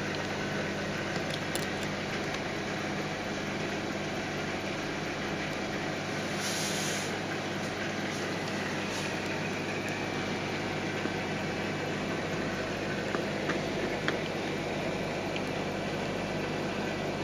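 Steady low hum and rushing water of a Red Sea Max 130D all-in-one reef aquarium's pumps and circulating water, with a few faint clicks about two-thirds of the way through.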